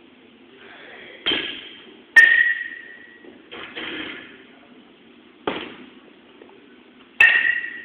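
A bat striking pitched balls twice, about five seconds apart, each hit a sharp ping that rings on briefly. Duller knocks come in between.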